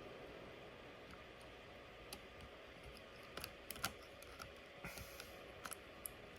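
Faint scattered small clicks and taps of a repair tool on an iPhone 12's internals as the screen's flex connectors are unclipped, a dozen or so irregular ticks over a faint steady hum.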